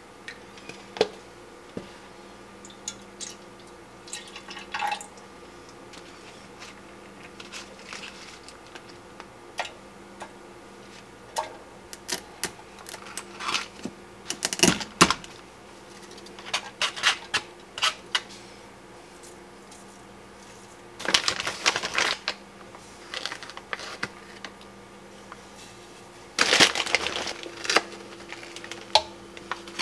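Hand-measuring bread ingredients into a bread maker's metal pan: milk poured into a plastic measuring cup, butter cut and dropped in, and milk powder spooned from a plastic bag. Scattered light clicks and taps, with a few louder short bursts of rustling and scraping, over a faint steady hum.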